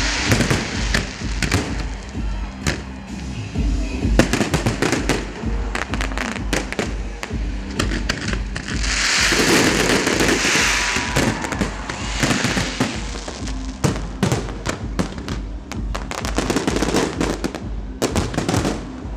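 Fireworks display: a rapid run of bangs and crackling shell bursts, with a longer hissing, crackling burst from about nine to eleven seconds in. Music with a steady beat plays underneath.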